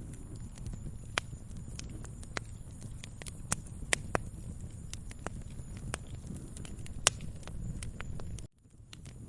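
Wood fire crackling: a steady low rumble of burning with irregular sharp pops and snaps, the loudest about 4 s and 7 s in. About 8.5 s in the sound cuts out for an instant and fades back in.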